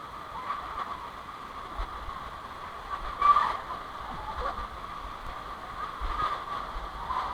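Steady rush of flowing water, with wind gusting on the microphone and a brief louder knock about three seconds in.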